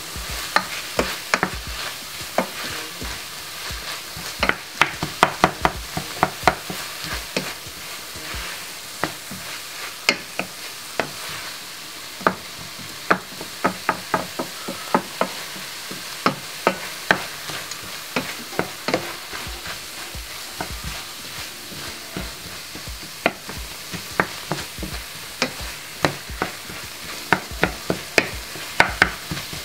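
Minced beef and onions sizzling as they brown in a stainless steel pan, stirred with a wooden spoon that scrapes the pan and knocks against it in frequent sharp taps.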